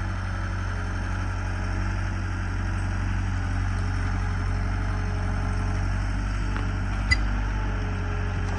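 Skid steer engine running steadily while it powers a homemade hydraulic log splitter, with one sharp click about seven seconds in.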